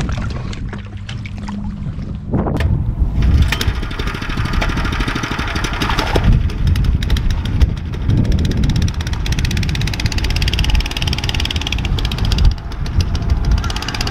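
A 7.5 hp long-tail outboard engine running at speed and driving the kayak, with a rapid, even beat. It takes over about two seconds in, after a brief stretch of wind and water noise.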